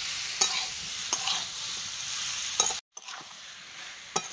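Amla pieces frying in mustard oil and melting sugar in a kadai, with a steady sizzle and a metal spatula scraping and clicking against the pan as the pickle is stirred. The sound breaks off for an instant about three seconds in, then carries on with a quieter sizzle.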